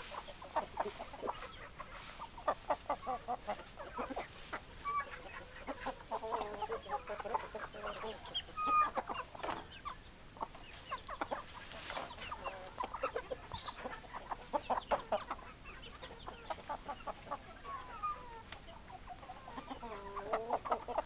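Chickens clucking, a flock of hens giving short, repeated calls in clusters throughout.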